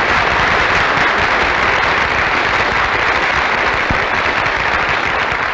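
Studio audience applauding after a song, a dense steady clapping that begins to die away near the end.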